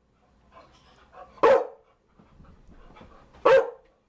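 Chow Chow barking: two single barks about two seconds apart.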